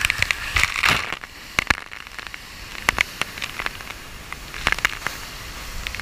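Waterfall spray and drops striking a first-person action camera: a loud splashing rush for about the first second, then a quieter, muffled rush of falling water with scattered sharp clicks and taps of drops hitting the camera.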